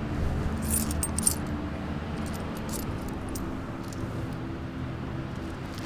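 Metal coins clinking and jingling as they are handled and counted out by hand, in a few short clusters over the first four seconds, over a low steady background rumble.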